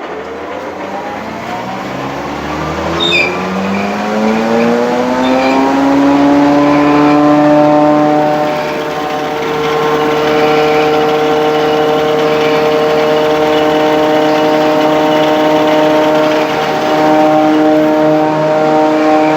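A 4.5 kW, 380-volt three-phase thickness planer's motor and square two-knife cutterhead starting up. The soft start winds the pitch up over about six seconds, then the machine runs steadily at full speed.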